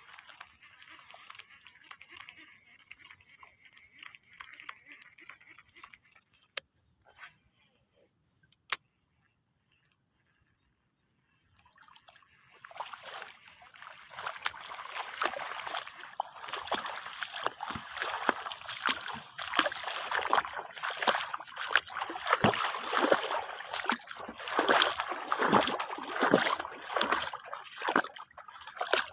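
Quiet at first, with one sharp click about nine seconds in. Then, from about twelve seconds in, a busy run of water splashing and sloshing builds and grows louder.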